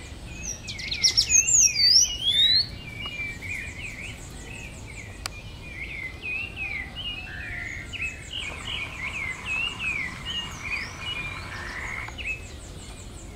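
Several birds chirping and calling in short, sweeping notes, with a louder burst of sharp rising calls about a second in. A faint, high, rapidly pulsing insect trill runs underneath.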